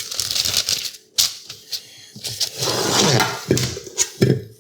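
Clinks, taps and clatter of pans and kitchen items being handled on a countertop, with several sharp knocks.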